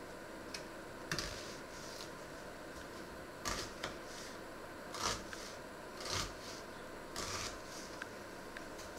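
Dry onion skin rustling and crackling as it is peeled and trimmed off small onions with a paring knife, in short bursts a second or so apart, with a few faint clicks of the knife against the wooden board.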